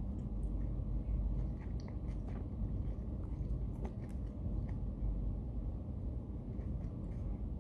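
A person chewing and smacking food close to the microphone, with scattered small clicks over a steady low hum.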